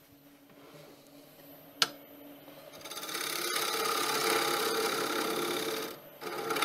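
Wood lathe running with a low steady hum, then about three seconds in a carbide-tipped turning tool scrapes the spinning wooden bowl: a loud rasping cut lasting about three seconds that breaks off and starts again just before the end. A single sharp tick about two seconds in.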